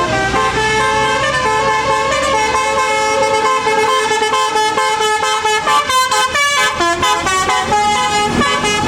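Indonesian bus 'telolet' multi-trumpet musical horn playing a tune, several horn tones sounding together and stepping from note to note. A bus engine's low rumble runs under the first three seconds or so.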